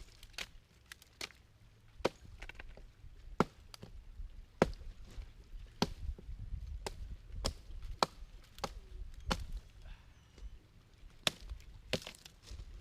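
Axe chopping wood: a dozen or so sharp strikes into wood, unevenly spaced about a second apart, the loudest in the first five seconds.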